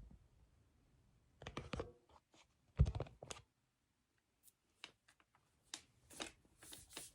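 Handling noise from a Dyson V11 cordless stick vacuum being moved about: scattered light clicks and knocks, the loudest a single knock a little under three seconds in, then a few faint ticks.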